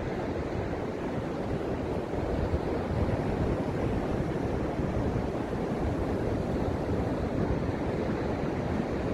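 Ocean surf breaking and washing onto a sandy beach, a steady low rush of waves, with wind rumbling on the microphone.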